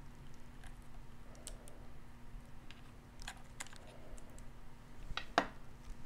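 Faint, scattered small clicks and taps from a precision screwdriver and an M.2 SSD being handled over an opened laptop, the sharpest click near the end.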